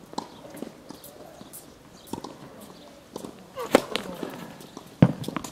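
Tennis ball impacts on an outdoor hard court: scattered light pops and taps, with two much louder hits, the first a bit more than halfway through and the second about a second later.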